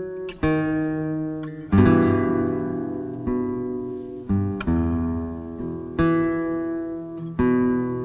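Instrumental background music: slow chords, each struck and left to ring out, with a new one roughly every second.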